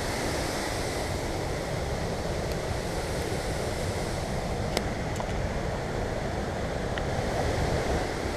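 Waterfall and river in a gorge, a steady rushing noise, with a couple of faint knocks about five and seven seconds in.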